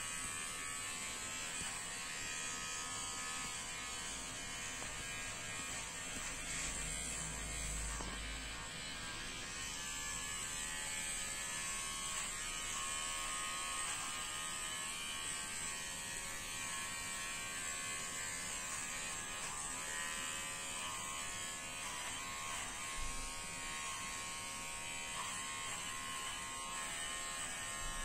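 Electric pet-grooming clipper running with a steady buzz as it shaves through a dog's coat.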